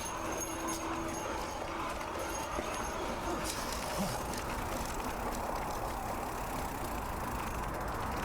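Mountain bike riding along a dirt forest road: steady tyre noise over the ground with the bike's light rattling and ticking.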